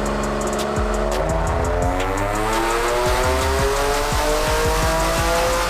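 Turbocharged 3.5-litre VQ35DE V6 of a Nissan 350Z running a pull on a chassis dyno, its revs climbing steadily for several seconds. Background music with a beat plays underneath.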